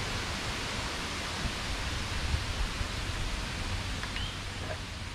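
Steady rush of wind over a riding cyclist's camera microphone, an even hiss with a low rumble.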